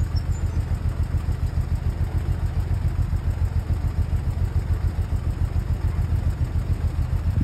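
Old Bedford tip truck's engine idling steadily with an even, rapid low pulsing.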